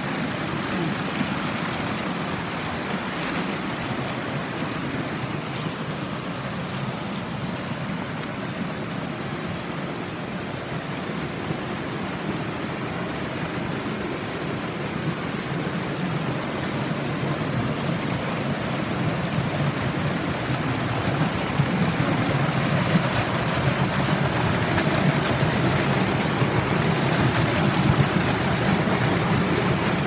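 Water of a waterfall cascading in a steady rush, growing a little louder about twenty seconds in.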